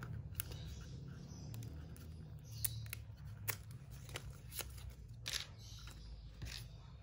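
A deck of glossy oracle cards being handled: light clicks and short rustles as the paper band is slid off and the cards are pushed apart in the hands.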